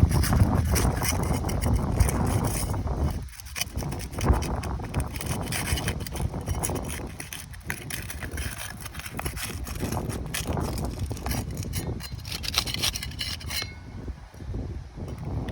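Wind rumbling on the microphone, loudest at the start, with scattered clicks and rubbing sounds throughout.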